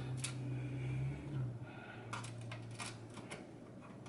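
Small clicks and taps of a screwdriver and screws as motherboard screws are driven into the case's standoffs, with a low hum that fades after about a second and a half.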